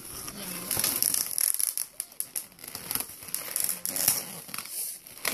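Twisted latex balloon figure being grabbed and handled by small hands, giving irregular rubbing and crinkling noises.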